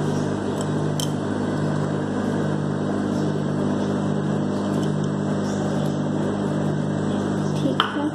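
Microwave oven running with a steady electrical hum that cuts off suddenly near the end, with a sharp click as it stops: the cake has finished baking.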